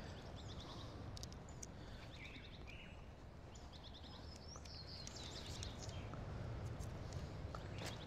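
Outdoor ambience with birds calling: several short phrases of rapid high repeated notes, some ending in a glide, over a faint steady background noise, with a few faint scattered clicks.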